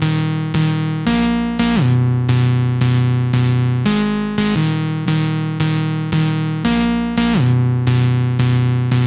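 Background music: a keyboard or synthesizer playing sustained chords struck about twice a second.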